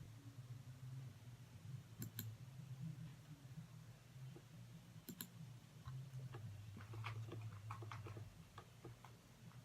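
Faint plastic clicking of a 3x3 Rubik's cube's layers being turned, with two pairs of sharper clicks about three seconds apart and a run of quick light ticks near the end, over a low steady hum.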